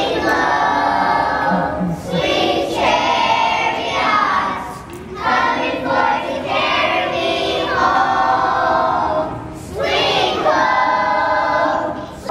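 A group of children singing together, in phrases with short breaks between them.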